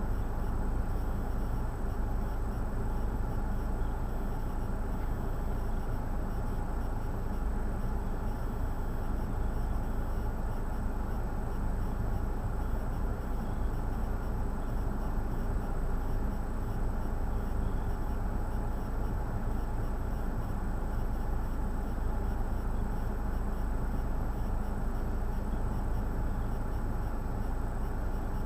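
Steady blizzard wind, a constant low rumble with no pauses.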